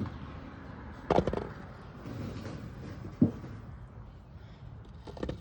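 Small red Norland potatoes being dropped into a bowl on a kitchen scale: a short clatter of knocks about a second in, a single knock a couple of seconds later, and a couple more near the end.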